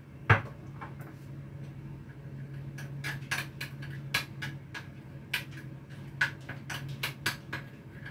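Hot cooking oil in a wok crackling and popping in irregular sharp pops over a steady low hum, with one knock on the pan about a third of a second in.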